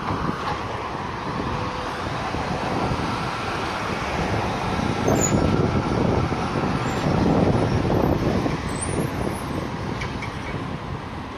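B2-class tram running past close by on street track, a steady rumble of wheels on rails and motor noise that is loudest about five to eight seconds in as the tram goes by.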